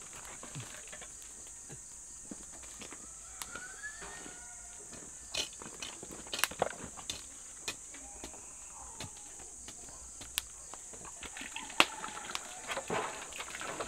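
Outdoor ambience around a wood cooking fire: scattered sharp crackles and knocks from burning and handled firewood, footsteps, and a steady high hiss, with a few short animal calls. Near the end, water from a hose starts splashing into the large wok.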